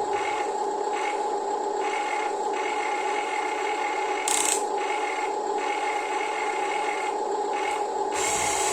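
Electric motors and gearboxes of Huina hobby RC construction models (excavator and dump truck) whining steadily, with gritty scraping that comes and goes as sand is worked, a brief hiss about four seconds in and louder scraping near the end.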